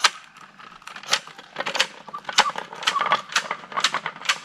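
Quick irregular clicks and rattles, several a second: the Mingo log-marking wheel, loaded with a paint can, being handled or rolled.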